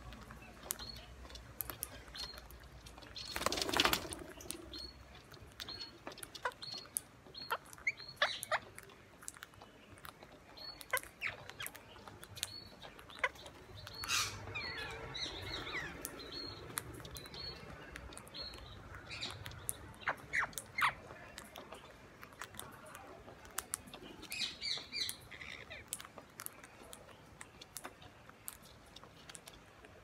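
Rose-ringed parakeets feeding on seeds, their beaks cracking and crunching with many scattered sharp clicks. There are a few short chirps and calls, and a brief rustling burst a few seconds in. A faint high chirp repeats about twice a second through the first half.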